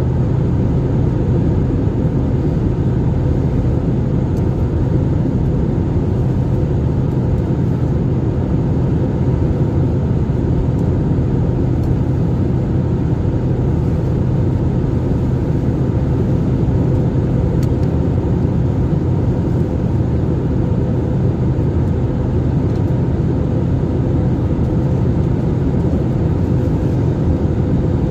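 Steady drone of an airliner in flight heard inside the passenger cabin: low engine and airflow rumble with a constant hum, at an even level throughout.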